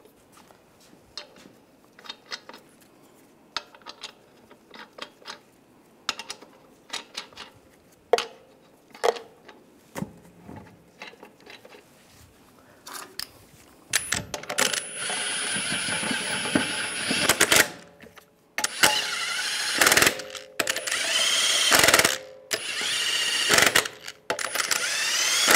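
Lug nuts being threaded onto a wheel by hand, with scattered small metallic clicks. About halfway through, a cordless impact wrench starts running the lug nuts down in several bursts, the first lasting about three seconds.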